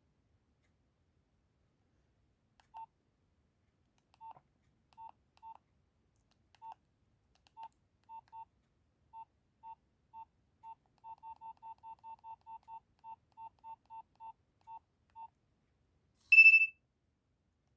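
Nokia 2300 mobile phone's keypad beeps: about two dozen short, identical single-pitched beeps as its keys are pressed, irregular at first, then coming quicker at about three a second. Near the end comes one short, much louder, higher-pitched tone.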